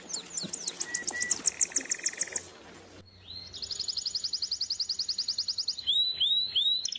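Songbirds singing: a rapid, very high trill of repeated notes, then after a short break a second rapid trill a little lower in pitch, followed by a few quick down-slurred notes near the end.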